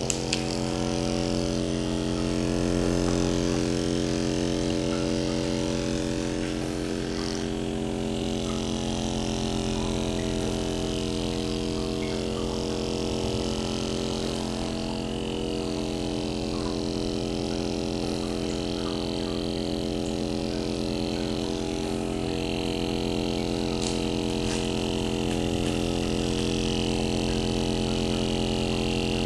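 Motorised vacuum-suction massage device switching on and running with a steady hum and a hiss of air above it, as its cup draws on the skin.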